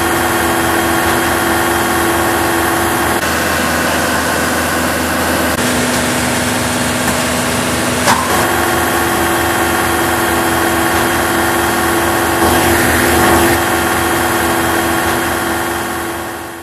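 A tractor engine running steadily while driving a PTO-powered Pezzolato wood chipper, a constant machine hum with an even low pulse. A short sharp click about halfway through, and the sound fades out at the end.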